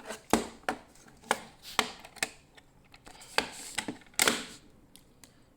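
Irregular plastic clicks and knocks as a Simplex TrueAlert fire alarm strobe is handled, about a dozen in all, with a brief scrape about four seconds in.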